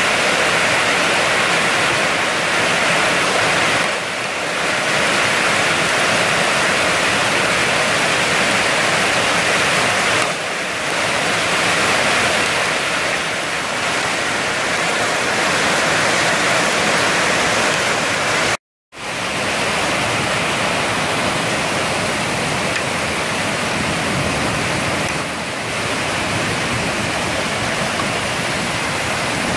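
Heavy rain pouring down on flat rooftops and a paved courtyard: a loud, steady, dense hiss. It cuts out for a split second about two-thirds of the way through.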